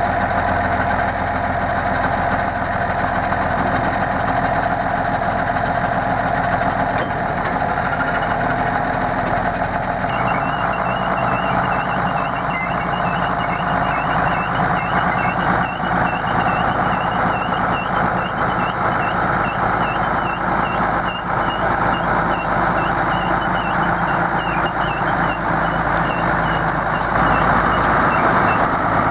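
Tractor engine running steadily while pulling a garlic harvester. From about ten seconds in, a fast, repeated high chirping sounds over the engine.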